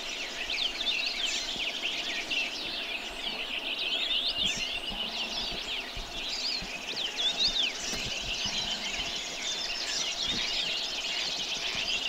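Many small songbirds chirping and twittering at once, a dense overlapping chorus of short, quick high notes that never lets up.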